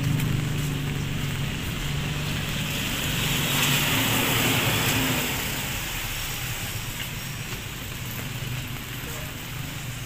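Street traffic on a wet road: a low engine hum from nearby vehicles that fades after the middle, with a hiss that swells and fades a few seconds in, like tyres on wet pavement.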